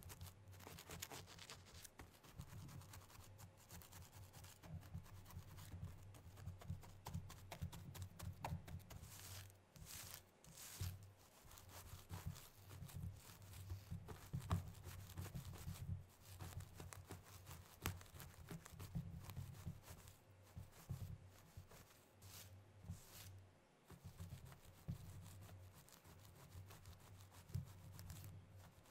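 Long stiletto nails scratching and raking through hair on a scalp close to the microphone: a quiet, continuous crackle of irregular scratchy rustles.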